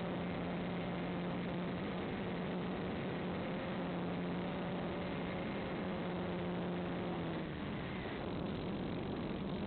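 Motor of an FPV model aircraft humming steadily under a dense hiss of wind and rushing air. The steady hum drops away about seven and a half seconds in, leaving the hiss.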